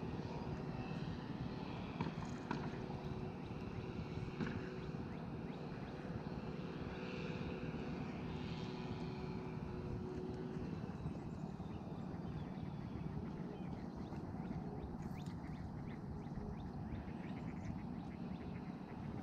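Steady low rumble of outdoor background noise, with a faint droning hum that fades out about ten seconds in.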